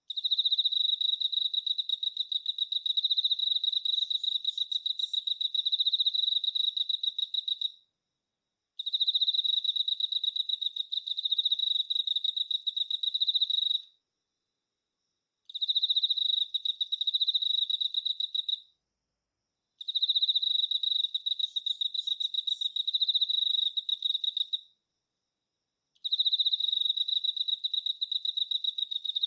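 Male Emma field cricket (Teleogryllus emma) singing its calling song: a fast train of high, clear chirps. It comes in stretches of several seconds broken four times by a second or so of silence.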